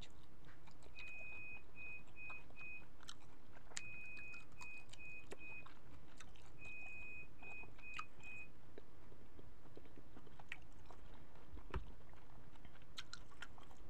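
Chewing cooked shrimp, with small wet mouth clicks. Over it an electronic beeper sounds three times, each time one long beep followed by three short ones at the same high pitch, the groups about three seconds apart.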